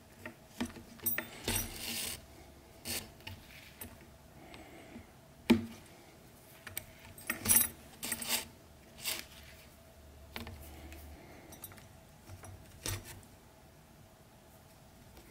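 Hand saddle stitching a leather strap in a wooden stitching clamp: irregular taps and clicks of the needles through the stitch holes, swishes of thread pulled tight through the leather, and the strap's brass buckle clinking. One sharp click a little past the middle is the loudest.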